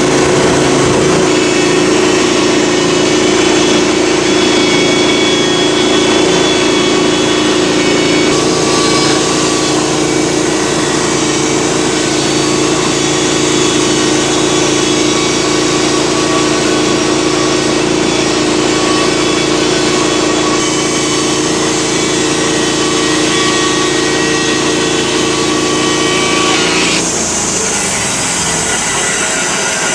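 Portable sawmill running steadily while a pine log is milled into slabs, its engine note shifting about 8 seconds in and again near the end.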